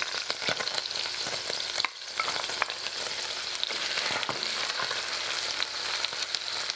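Chopped onions sizzling in hot oil in an enamelled Dutch oven, with a wooden spoon scraping and knocking against the pot in short clicks as they are stirred.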